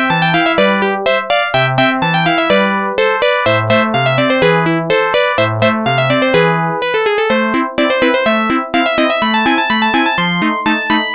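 A Samsung SGH-T100 polyphonic ringtone played back as a MIDI file through a software synthesizer. It is a continuous tune of electric-piano-like synth notes over a separate bass line.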